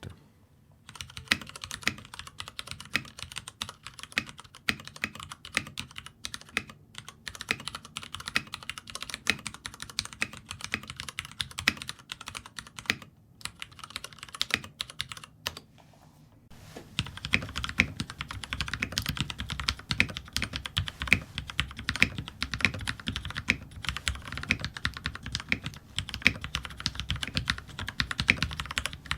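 Typing on a Vortex Multix mechanical keyboard with Cherry MX Red linear switches: fast, continuous keystrokes in two runs, a before-and-after comparison of the switches and case being lubed. After a short break about 16 seconds in, the second run sounds deeper and fuller.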